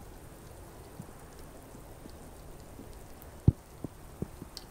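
Steady rain falling, with scattered single drops landing close by as sharp taps, the loudest about three and a half seconds in.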